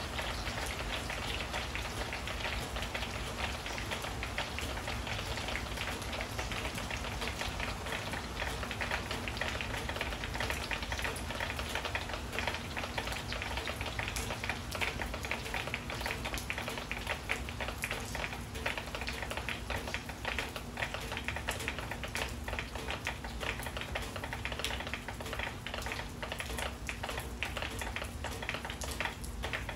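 Steady rain: a dense, even patter of drops.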